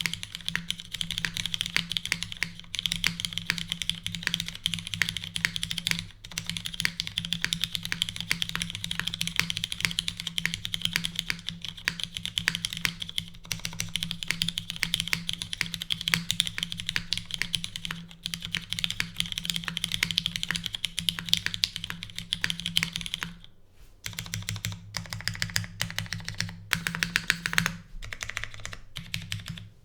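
Fast continuous typing on a custom mechanical keyboard with lubed, filmed Cherry MX Black linear switches in a full aluminum plate with no foam, under GMK keycaps: a dense stream of keystroke clacks. It pauses briefly just before the last quarter, then goes on with a few gaps near the end.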